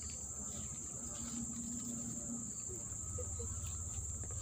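A steady, high-pitched insect chorus that rings without a break.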